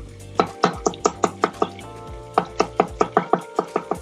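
Kitchen knife chopping garlic on a cutting board: quick, even strokes, about five a second, with a brief pause partway through.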